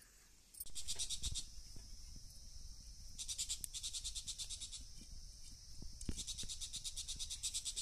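An insect trilling in three bursts of rapid, high-pitched pulses, about ten a second, each burst lasting one to one and a half seconds. Under it runs a low rumble with a few faint knocks.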